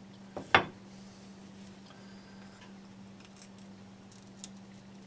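Fire-damaged glazed ceramic shards clicking as they are handled: one sharp click about half a second in, then a few faint ticks near the end, over a steady low hum.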